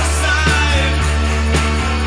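Rock music with a steady beat, a held bass note and a singing voice.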